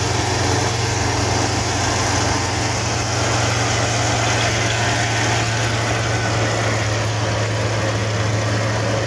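Kubota combine harvester running steadily, its engine giving a constant, unchanging hum over a dense mechanical noise.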